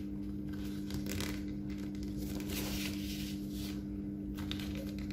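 A sheet of paper being folded and creased by hand, with soft rustles and slides of paper several times, over a steady low hum.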